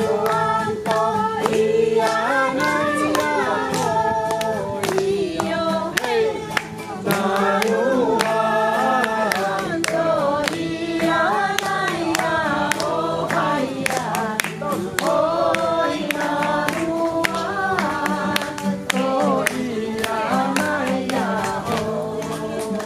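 A group of voices singing together over a steady low tone, with a sharp beat keeping time.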